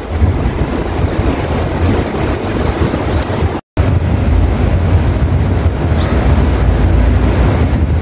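Steady rush of running fountain water, with wind buffeting the microphone. The sound drops out completely for a moment about three and a half seconds in.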